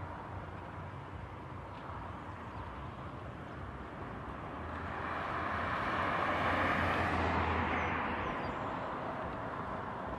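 Distant jet engines of a LATAM Airbus A320-214 (CFM56 turbofans) running steadily as it taxis across the airfield. A louder rush rises about four seconds in, peaks around six to seven seconds, and fades again.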